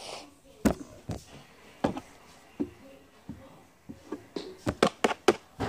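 A string of sharp, irregular knocks and taps, a few spread out at first and then coming in a quick cluster near the end.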